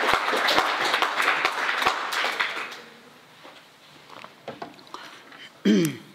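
Audience applause dying away about three seconds in, followed by a few faint small knocks and a brief vocal sound falling in pitch near the end.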